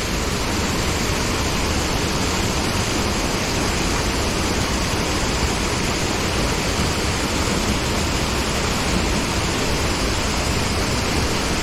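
Creek water pouring over a small dam into a deep pool, a steady loud rush.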